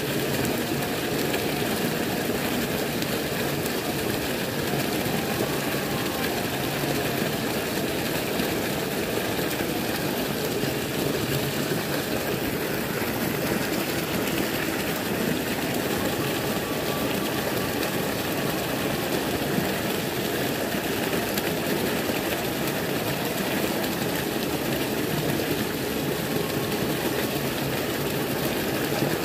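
Water pouring over a small concrete weir into a pool, a steady rush of churning white water.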